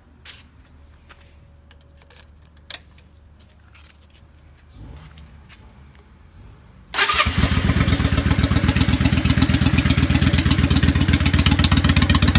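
Yamaha Virago XV535's V-twin engine is started about seven seconds in, catching at once and running loud with a fast, even exhaust pulse through heat-wrapped pipes. Before that there are only a few light clicks.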